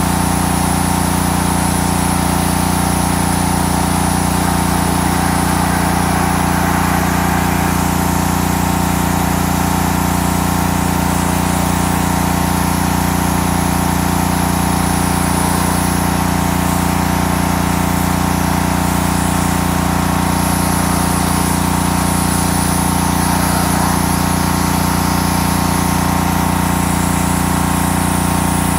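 Honda gasoline pressure washer's small single-cylinder engine running at a steady speed while the washer is in use, with an even hiss over the engine note.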